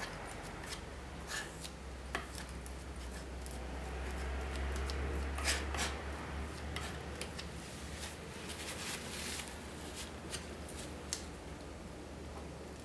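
Metal palette knife scraping and tapping on a paper palette as it mixes acrylic paint into a creamy medium: a string of short scrapes and clicks. A low hum swells in the middle and fades.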